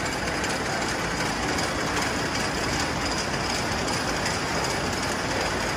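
24-spindle wire braiding machine running with its take-up unit winding the braided wire onto a reel: a steady mechanical rattle and hum at an even level.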